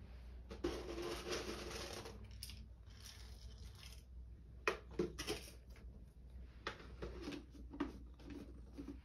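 Handling noise: a rustle for about a second and a half, then a few scattered light clicks and knocks.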